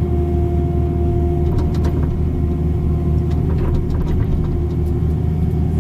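Caterpillar 305 mini excavator's diesel engine running steadily under load, with a steady whine over the low hum, while the bucket is floated flat across the soft trench bottom. A few faint clicks come through.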